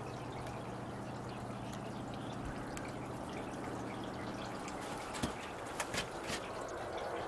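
Faint steady background noise with a low hum that stops about four and a half seconds in, then a few light taps a little after five and around six seconds.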